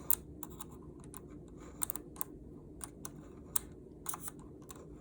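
Small, irregular clicks and taps of a magnetized screwdriver against the drone's plastic and metal parts as it is used to fish out a lost screw.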